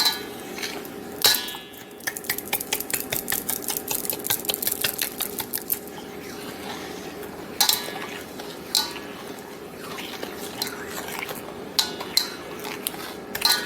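A utensil scraping and clinking against a mixing bowl while stirring a jerky marinade of sugar, soy sauce, eggs and seasonings. There is a few-second run of quick, regular stirring strokes, then several single ringing clinks as the utensil knocks the bowl's rim.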